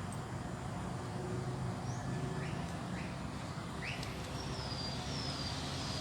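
Birds calling: a few short rising chirps, then three quick falling whistled notes near the end. Under them runs a steady low background rumble.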